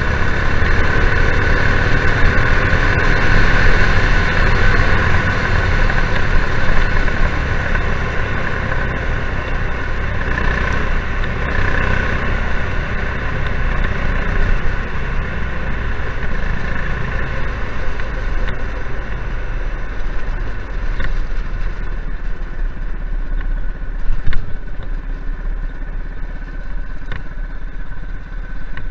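A go kart's former dirt-track racing engine running under way, loud and high-revving for roughly the first twelve seconds, then settling to lower, steadier revs. One sharp knock stands out late on.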